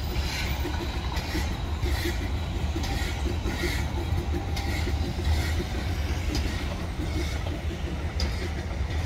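Chiemseebahn's 1887 steam tram locomotive working along the track with its carriages: a slow, even beat of exhaust puffs over a heavy low rumble of the running train.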